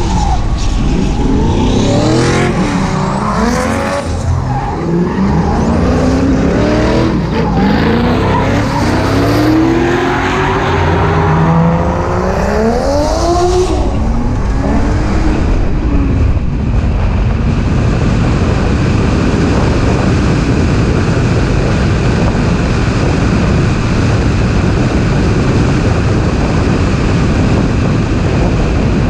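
BMW E30's M20 straight-six revving up and down hard while drifting, with tyres squealing and skidding. About halfway the revving stops and an even rush of wind on the microphone takes over as the car drives on.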